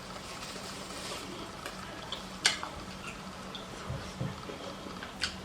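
A few sharp clinks of tableware during a meal, the loudest about two and a half seconds in and another near the end, over a steady low hum.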